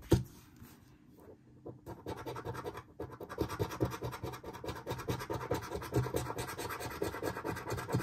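A coin scraping the scratch-off coating of a paper lottery ticket in rapid back-and-forth strokes, starting about two seconds in. A single sharp knock comes right at the start.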